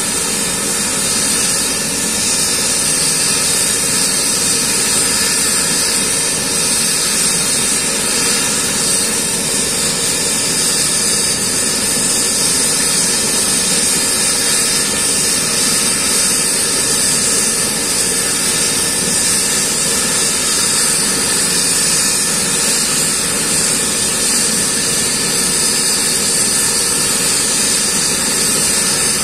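Eurocopter EC135 air-ambulance helicopter running steadily on the ground before lift-off: a constant high turbine whine over the rotor's steady noise.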